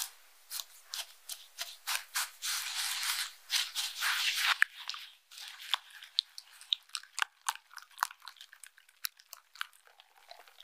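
Hand whisk beating eggs and sugar in a glass bowl. A dense, fast wet swishing comes about two to four seconds in, then the whisk wires click against the glass several times a second as the mixture turns smooth.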